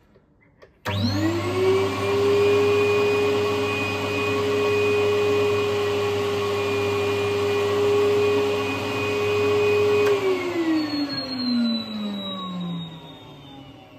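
SuperFlow 110 flow bench's vacuum motors switched on about a second in, whining up to speed and running steadily, then switched off about ten seconds in and winding down with a falling whine. The bench is pulling vacuum for a leak test on a bolted-down cylinder head, which is leaking heavily through an empty spark plug hole.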